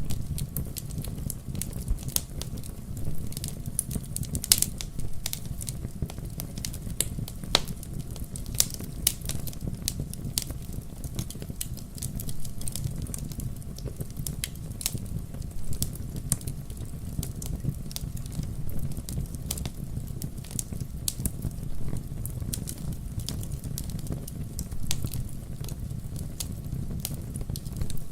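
Wood fire burning in a fireplace: logs crackling and popping in irregular sharp snaps over a steady low rumble of the flames.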